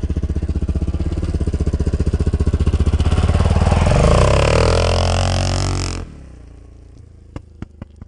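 KTM SX-F 250 single-cylinder four-stroke dirt bike with an Akrapovič exhaust, accelerating past. Its engine note climbs to a peak about four seconds in. The engine sound cuts off abruptly about six seconds in, leaving a faint background with a few clicks.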